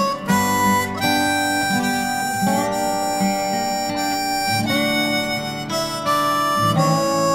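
Background music led by a harmonica playing held notes, with guitar accompaniment.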